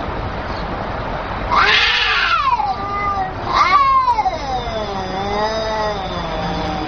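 Two domestic cats, a ginger and a black-and-white, caterwauling at each other in a face-to-face standoff, the threat yowling that comes before a fight. A loud yowl starts about a second and a half in, then a long wavering yowl starts about three and a half seconds in.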